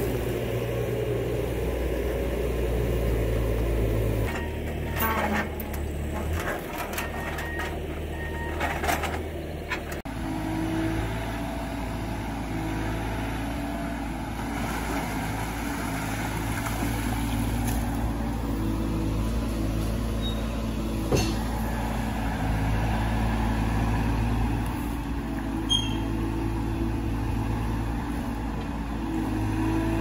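Diesel engines of compact Bobcat equipment running. First a track loader with an attachment, with a few knocks about five to nine seconds in. Then, after a cut about ten seconds in, an E42 mini excavator digging in a muddy pond, its engine note stepping up and down with the hydraulic load.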